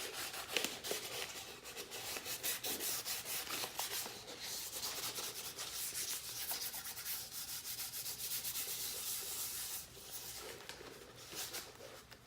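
Wet/dry sandpaper rubbing back and forth on a plastic side-mirror housing in rapid strokes, wet sanding to rough the surface so paint will stick. The rubbing eases briefly about four seconds in and grows quieter and patchier near the end.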